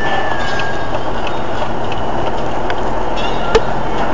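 Steady road and engine noise heard from inside a moving car's cabin, with a single sharp click about three and a half seconds in.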